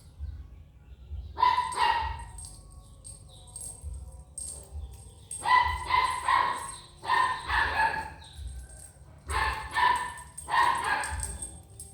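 A dog barking in about five bursts of several quick barks each, with pauses between the bursts.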